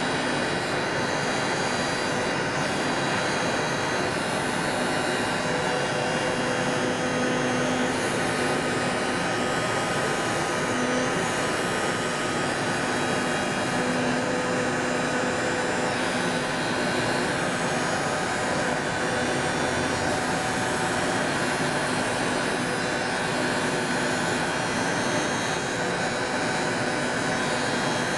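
CNC oscillating knife cutting machine running while it cuts a door mat: a loud, steady mechanical noise, with a low hum that comes and goes in stretches.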